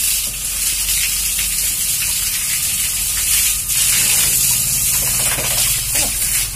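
Water from a hose spraying onto pigs and the pen floor, a steady gush, with a low steady hum underneath.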